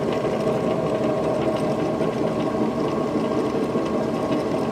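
Denis Cimaf 180D forestry mulcher rotor drum spun at about 600–700 RPM by a two-horsepower electric motor through a belt drive, giving a steady mechanical drone with a fine, rapid rattle. The head is vibrating, which the owner puts down to rotor imbalance and a drive-side bearing he thinks is bad.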